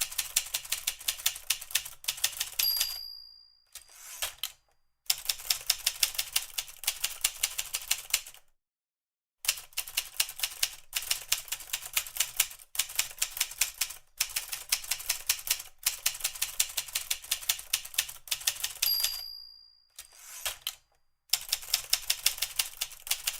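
Manual typewriter typing in quick runs of key strikes, with short pauses between runs. Twice the margin bell rings, each time followed by a short sliding sound of the carriage being returned.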